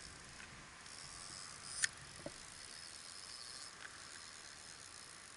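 Faint high chirring of insects in the grass, with a sharp click about two seconds in and a softer click just after.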